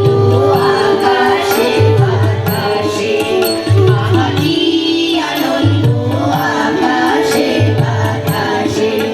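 Indian-style song: a singing voice holding long, bending notes over a low drum beat that falls about every two seconds.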